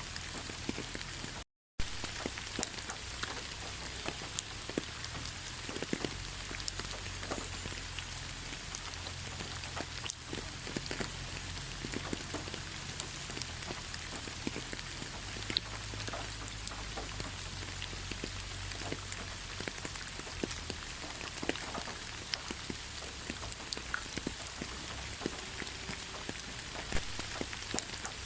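Steady rain falling, with many separate drops ticking on a hard surface. The sound cuts out completely for a split second about a second and a half in.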